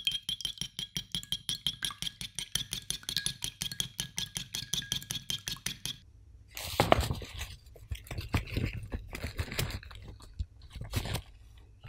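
A wire whisk beats two eggs in a ceramic bowl, making rapid, even clinking strokes about six a second while the bowl rings. The clinking stops suddenly about six seconds in, and flour is then tipped and spooned into an empty ceramic dish in several soft rushing pours.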